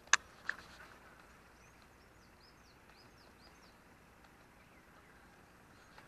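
Two sharp clicks near the start, then a small bird giving a quick run of about eight short high chirps, over faint outdoor background noise.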